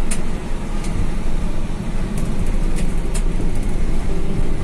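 Steady low rumble of a medium-size intercity bus's engine and road noise heard from inside the moving bus, with a few short sharp ticks or rattles scattered through it.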